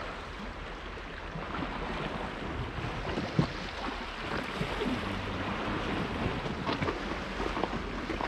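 Steady wash of sea waves on a rocky shore, with wind rumbling on the microphone and a faint knock about three and a half seconds in.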